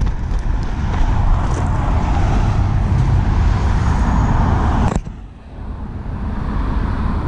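Steady outdoor rumble of road traffic noise, which drops away suddenly about five seconds in and slowly comes back.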